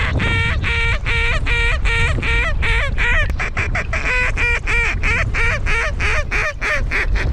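Goose honking: a single caller repeats short, even honks at about three a second, quickening to about four a second partway through, then stops near the end.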